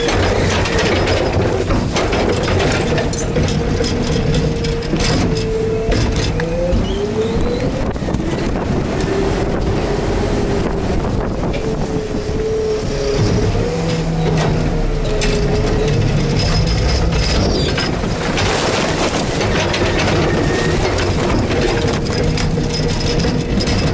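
Garbage truck's engine and hydraulics running during a hopper pack-out, with a whine that wavers up and down in pitch and scattered clicks and rattles over a steady rumble.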